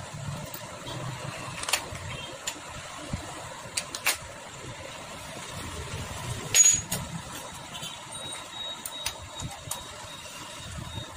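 Bajaj Pulsar 150's air-cooled single-cylinder four-stroke engine running at idle, freshly fitted with a new cylinder bore. Several sharp clicks sound over it, the loudest about six and a half seconds in.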